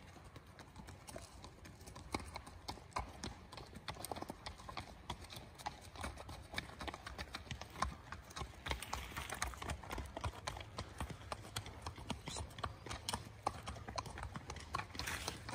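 Horses walking on a gravel drive: an irregular run of hoof falls from several horses, getting louder from about halfway as they come close.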